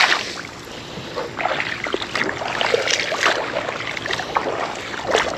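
A hand splashing and sloshing in shallow, muddy tidal water, with irregular wet splashes.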